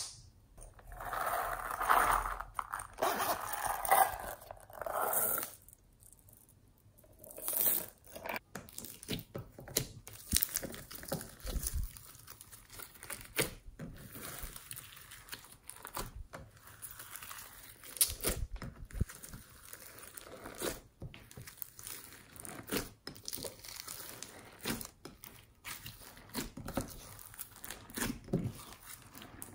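Hands pressing, stretching and folding slime loaded with foam beads, glitter and sprinkles, making crackling, crunching handling sounds. The sound is denser for the first few seconds, then turns into many small sticky clicks and pops.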